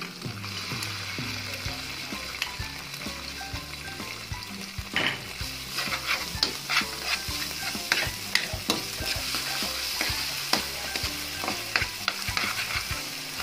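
Chopped onion and garlic sizzling in hot oil in a pan as gochujang chili paste is stirred in with a metal spatula, which clicks and scrapes against the pan many times over the steady sizzle.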